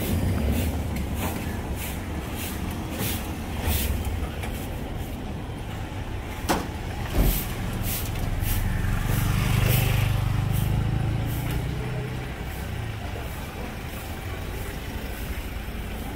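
Street traffic on a paved street, with a motor scooter passing close by, loudest about nine to eleven seconds in. Two sharp knocks come about six and a half and seven seconds in.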